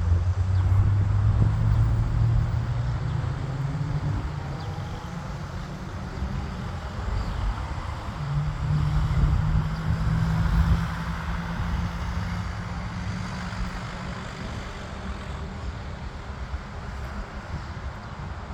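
Jet aircraft engines rumbling as the plane climbs away after takeoff, slowly fading.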